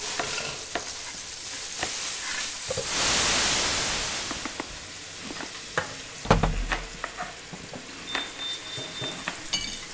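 Food sizzling and frying in hot oil, a steady hiss with scattered small pops and clicks. The hiss swells louder about three seconds in and eases off again, and there is a low thud about six seconds in.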